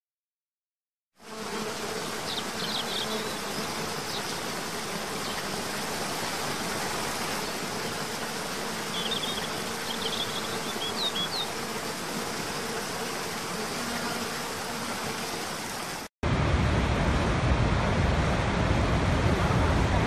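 Waterfall water rushing steadily, with a few short, high bird chirps in the first part. About sixteen seconds in it switches suddenly to a louder, deeper rush of a large waterfall.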